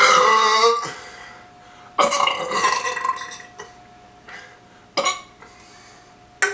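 A man burping loudly after drinking carbonated Perrier lime seltzer: two long, pitched burps, one at the start and one about two seconds in, followed by two short sounds near the end.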